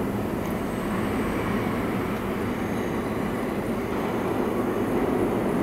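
Kawasaki-built R62 subway train running out of the station into the tunnel: a steady rail rumble, easing slightly and then swelling again near the end.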